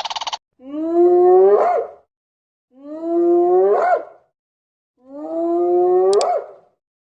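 An animal's drawn-out call, given three times with short silences between, each about a second and a half long, holding a slightly rising pitch and lifting sharply at the end.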